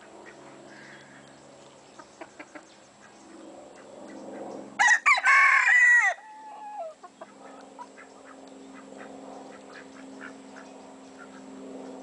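A rooster crows once, loudly, about five seconds in: a choppy start, then a held call that falls away at the end. Hens cluck softly around it, over a low steady hum.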